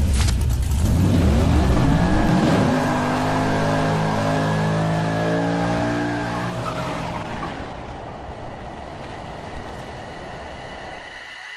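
Car engine revving up, its pitch rising over the first few seconds, then running steadily and slowly fading away.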